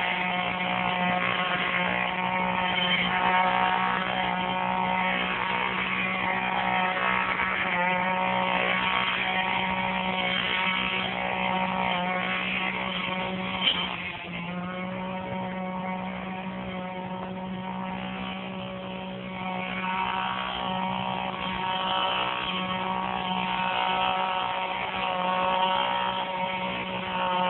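A small engine running steadily, its pitch shifting slightly now and then; it gets quieter about halfway through and louder again toward the end.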